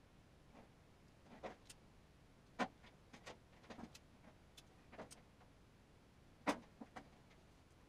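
Faint clicks and rustles of hands handling insulated wires and a plastic plug connector, with two sharper clicks, one about a third of the way through and one near the end.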